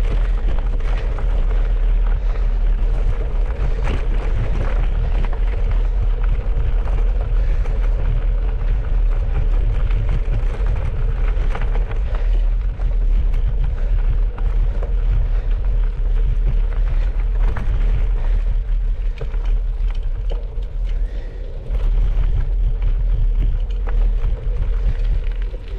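Wind buffeting the microphone in a steady low rumble while cycling, over the noise of bicycle tyres rolling on a gravel track.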